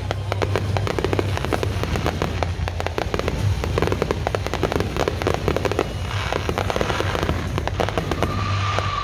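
Fireworks display going off: a dense, continuous run of rapid bangs and crackles from aerial shells, with a steady high whistle coming in near the end.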